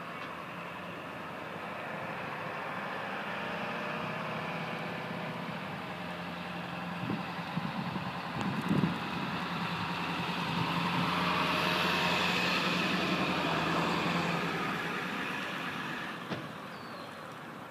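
A motor vehicle's engine running steadily, growing louder through the middle and fading near the end. A few soft thumps come about halfway through.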